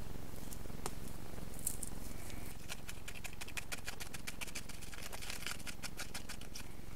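Dense crackling and gritty rattling as filter material is pressed and packed down into a wooden tube by hand, starting about two and a half seconds in and running on nearly to the end.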